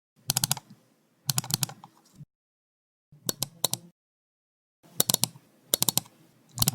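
Computer mouse clicking: six short bursts of sharp clicks, each a quick pair or handful of clicks, separated by silent gaps.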